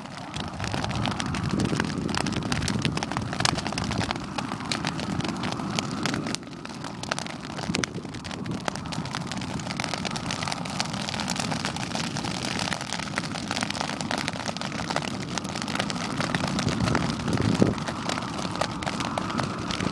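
Dry grass burning in a field fire: a dense, continuous crackle of popping stems over a steady rush of flame.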